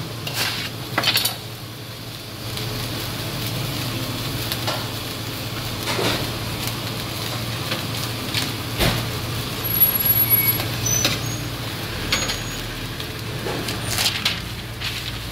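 Steady sizzling hiss and low hum from a gas-fired vertical döner grill cooking chicken. A few sharp knocks and scrapes of a knife and utensils on the board and tray come through it.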